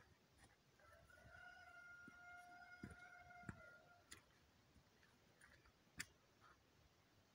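Near silence, with a faint, steady, pitched call held for about three seconds starting about a second in, and a few sharp clicks.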